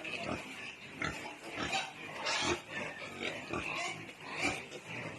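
Philippine native pigs grunting over and over in short, irregular calls, with a few higher, squeal-like calls mixed in.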